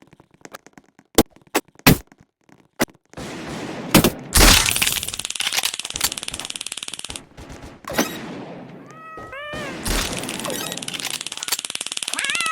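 Domestic cat meowing a few short times in the second half. Before and under the meows there are scattered clicks and knocks, then a long, loud rustling, rattling noise.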